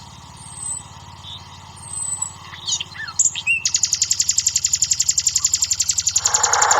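Birds chirping over a steady low pulsing hum. About halfway, a loud, rapid, high-pitched trill of about ten pulses a second starts and keeps going.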